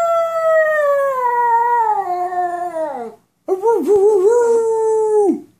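A dog howling: two long howls, the first sliding slowly down in pitch until it trails off about three seconds in, the second starting after a brief pause, wavering at first and then held level before falling away near the end.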